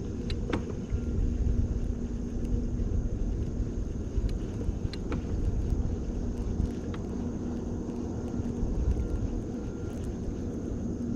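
Boat motor running steadily: a low rumble with a steady hum, with a few faint sharp clicks over it.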